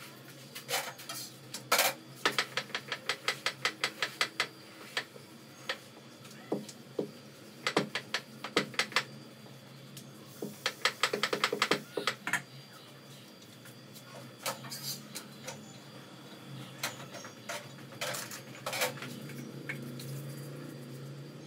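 Rapid clacking of a rolling pin against a rolling board as chapati dough is rolled out. It comes in runs of a second or two, about five or six clacks a second, with a few single knocks and clinks between the runs.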